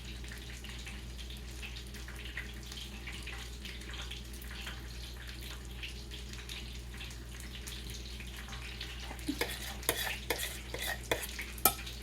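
Breaded chicken wing drumettes frying in hot oil, a soft, steady crackle of small pops. From about nine seconds in, sharper clicks and knocks come in over it.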